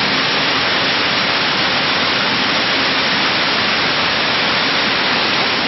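Seed-processing machinery running: a steady, loud rushing noise with a faint low hum underneath.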